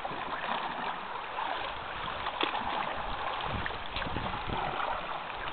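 Water sloshing and lapping around a canoe, with a few low bumps about three and a half to four and a half seconds in.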